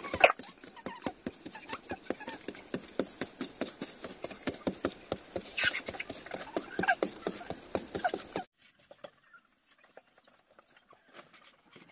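A hand digging tool chopping and scraping into dry, lumpy clay soil: a fast run of short crunching strikes, the loudest just after the start. It stops abruptly about eight seconds in, leaving only faint scattered ticks.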